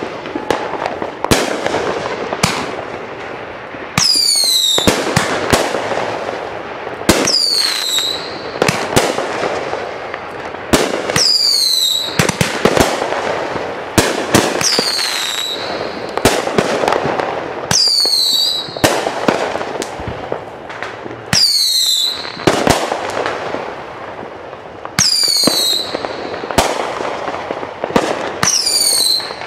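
Aerial fireworks going off in a rapid string of sharp bangs. A high whistle falling in pitch recurs about every three and a half seconds.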